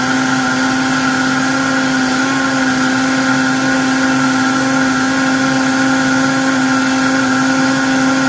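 Vitamix A3500 Ascent blender motor running at a steady high speed on its smoothie program, blending a smoothie of frozen fruit and greens, with a constant pitch.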